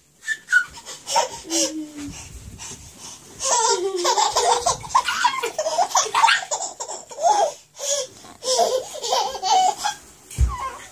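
Young child laughing: a few short vocal sounds at first, then repeated laughter that carries on strongly from about four seconds in. A short dull thump near the end.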